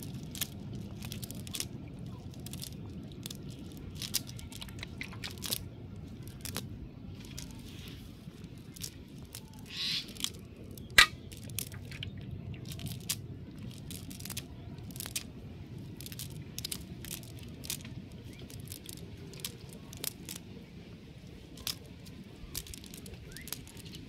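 A fishing net being handled and pulled apart by hand over muddy ground: irregular rustling and many small clicks, with one sharper click about eleven seconds in.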